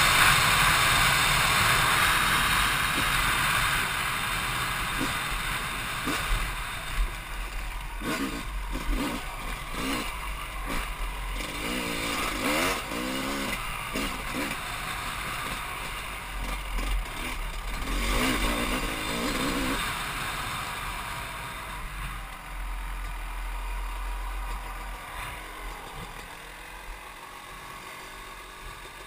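Yamaha YZ250 two-stroke dirt bike engine running hard with a loud rush at first, then revving up and down between about 8 and 20 seconds in, getting quieter towards the end as the bike slows to a stop.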